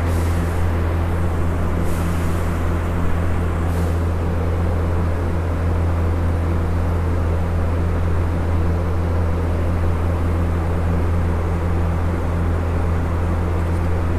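Steady low droning hum of a running motor with a constant rushing noise, with three faint brief hisses in the first four seconds.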